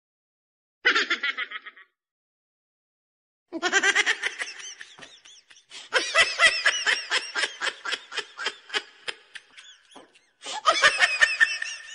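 High-pitched laughter in rapid pulses, coming in bouts: a short burst about a second in, a long run of laughing from about three and a half seconds in, and another burst near the end.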